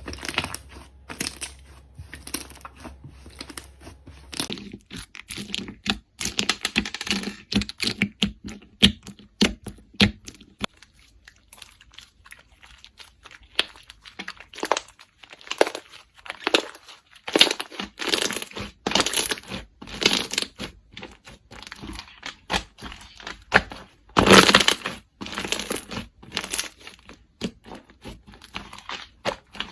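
Slime being squeezed, stretched and pressed by hand: an irregular run of small sticky pops, clicks and crackles, thickest and loudest about 24 seconds in.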